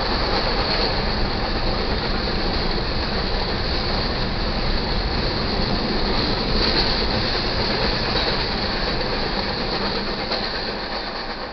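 Grain train's covered hopper cars rolling past on the rails, a steady rumble and clatter of wheels that fades near the end.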